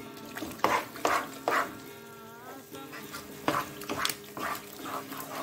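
Spatula stirring and scraping thick moong dal halwa cooking in ghee around a nonstick pan, in a run of uneven, sharp scraping strokes. A short wavering whine sounds faintly behind it about two seconds in.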